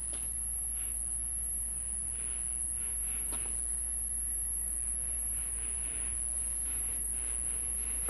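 Quiet room tone: a steady high-pitched whine over a low hum, with a few faint ticks.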